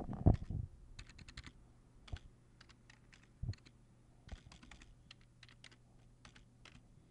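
Typing on a computer keyboard: a scatter of faint, irregular key clicks over a faint steady low hum, with one low thump about three and a half seconds in.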